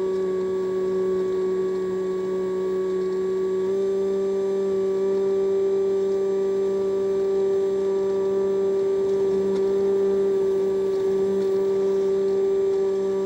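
Multiplex EasyStar's electric motor and propeller running at steady throttle in flight: a steady, even drone whose pitch steps up slightly about four seconds in.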